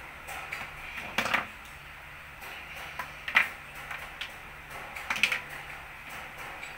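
Plastic toy building bricks clicking and clacking as they are handled, pressed together and set down on a wooden table. The clicks come irregularly, with the sharpest ones about a second in, midway and about five seconds in.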